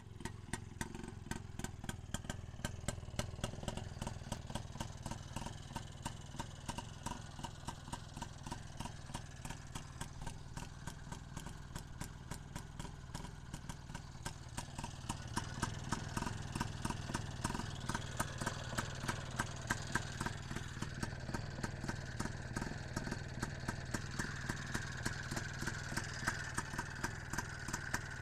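Izh Planeta 5's single-cylinder two-stroke engine idling, with a regular sharp knock riding on the running. The owner takes the knock for something in the piston and cylinder and is asking what it is. It gets a little louder about halfway through.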